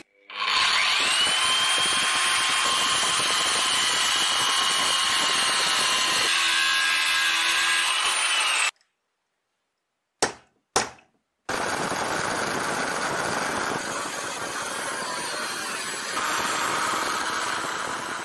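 Angle grinder cutting through a steel angle profile clamped in a vise: a steady high whine over grinding noise for about eight seconds, then cut off. After two short bursts, a drill press bores through a steel plate with a steady grinding drone that grows louder near the end.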